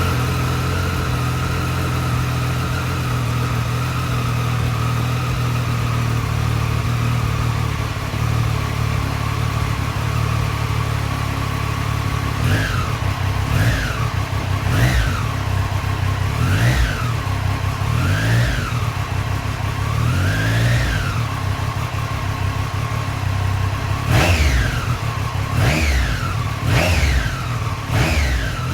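2018 Triumph Street Triple's three-cylinder engine, breathing through a Racefit Growler X slip-on exhaust that keeps the stock headers and catalytic converter, idling steadily just after starting. About twelve seconds in, the throttle is blipped about six times, each rev rising and falling back to idle. After a short idle a quicker run of blips follows near the end.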